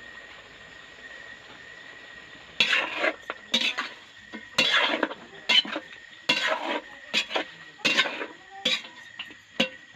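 A metal ladle stirs chicken pieces in a large metal pot, scraping and clanking against the pot in a quick irregular series of strokes from about two and a half seconds in. A quiet steady hiss lies underneath.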